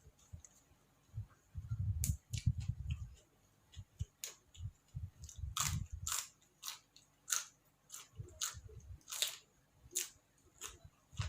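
A person chewing crunchy food close to the microphone: a run of irregular crisp crunches over low, dull chewing thumps.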